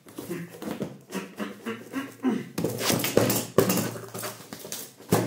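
Corrugated cardboard box being wrestled open: flaps and packing tape rustling, scraping and cracking, with a run of sharp knocks and rips a little past the middle. The man gives short strained grunts as he struggles with the heavily taped box.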